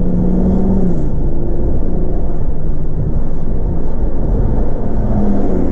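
A car's engine and road noise heard from inside the cabin while driving: a steady low rumble with a faint engine tone that holds, then drops about a second in.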